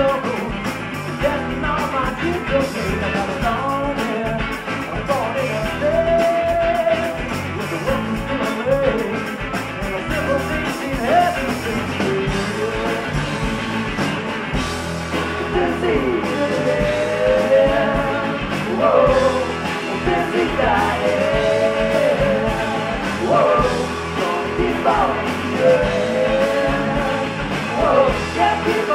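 Live rock band playing, with electric guitars and drums under a woman singing lead.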